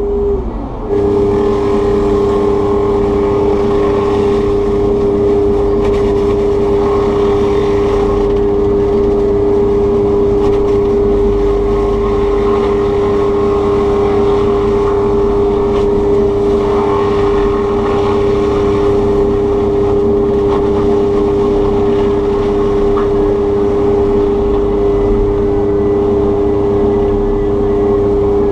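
Takeuchi TB290 excavator running an FAE forestry mulching head: a loud, steady machine drone with two held tones that sets in about a second in and does not vary.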